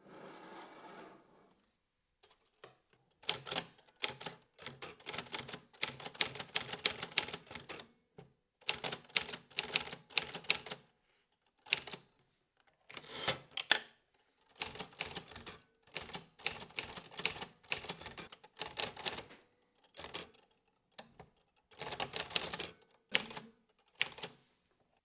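Typewriter being typed on: runs of quick key strikes in bursts of a few seconds, separated by short pauses.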